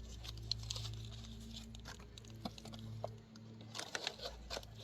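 Handling noise: scattered light clicks and taps, with some rustling, over a steady low hum that dips briefly a little past the middle.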